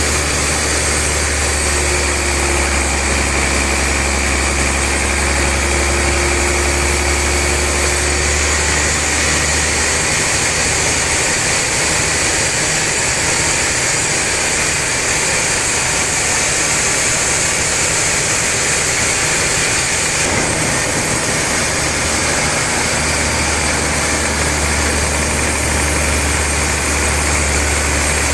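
Sawmill machinery running steadily with a loud mechanical drone. A low hum drops away about a third of the way in and comes back near the end.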